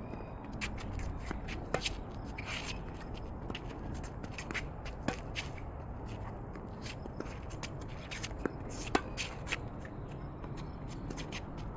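Tennis rally on a hard court: sharp racket strikes and ball bounces every few seconds, with tennis shoes scuffing and squeaking on the court between them, over a steady low rumble.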